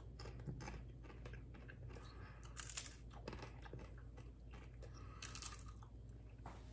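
A person biting and chewing crisp tortilla chips topped with melted cheese, with two short bursts of crunching, one near the middle and one near the end, over a faint low hum.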